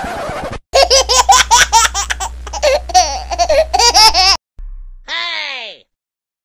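Loud laughter, a quick run of rising-and-falling ha-ha bursts lasting about three and a half seconds. A short falling swoop follows about five seconds in.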